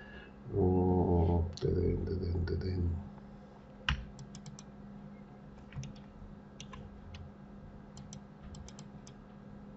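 A man's low, steady closed-mouth hum, twice, then scattered clicks and taps of a computer keyboard and mouse at the desk.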